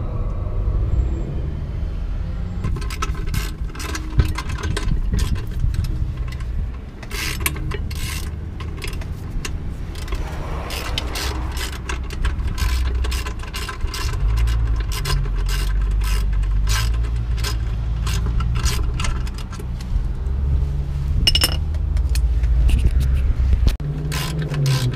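Socket ratchet clicking in quick runs, starting a few seconds in, as it tightens the rear brake caliper mounting bolts, over a steady low rumble.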